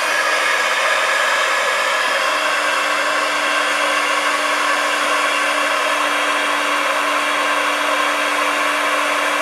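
Handheld craft heat gun running steadily: a rush of blowing air, with a hum that settles in about two seconds in.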